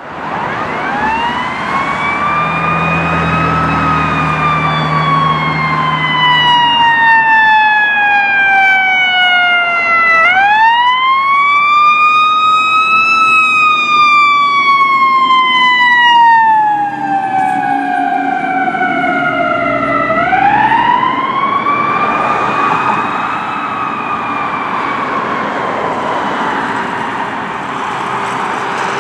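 Fire engine siren wailing in slow cycles, three times in all: each rises over about three seconds, then slides slowly down over about six seconds before climbing again.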